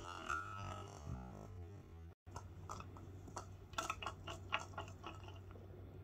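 Light plastic clicks and knocks from a cat's treat-puzzle toy. The clear plastic ball on its spring is pawed and nudged by a cat, with treats rattling inside. There is a quick run of taps in the second half.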